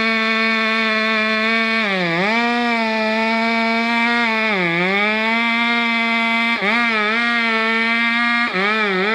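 Two-stroke chainsaw running at full throttle, its high steady whine dipping in pitch several times as it bogs down under load in the cut.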